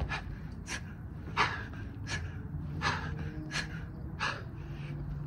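A man breathing hard through a burpee set, with a sharp puff of breath about every three-quarters of a second.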